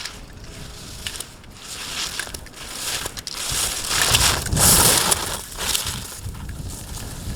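Ski edges scraping and carving on hard-packed snow as a slalom racer passes. The hiss swells in waves with each turn and is loudest about four to five seconds in, with a few sharp clicks.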